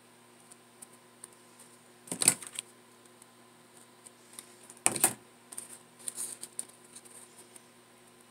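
Two sharp knocks about three seconds apart as a hot glue gun is handled against the countertop, followed by a run of lighter clicks and handling noises, over a faint steady hum.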